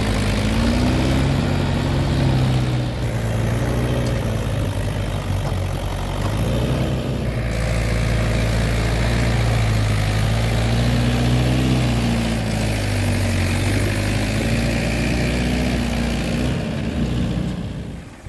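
Mahindra Yuvo 415 DI tractor's four-cylinder diesel engine running under load as it pulls a trolley heaped with mud, its note rising and falling with engine speed. The engine sound drops away suddenly near the end.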